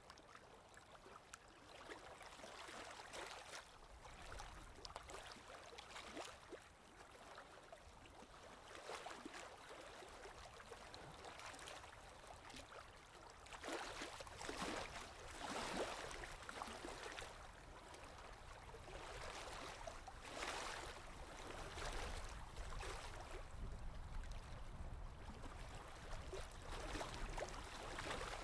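Pen scratching on paper in irregular strokes of varying length, at a low level.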